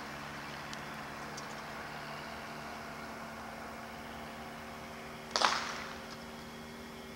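Outdoor street ambience through a camcorder microphone: a steady hiss with a constant low hum. About five seconds in, a sudden short rush of noise fades away within half a second.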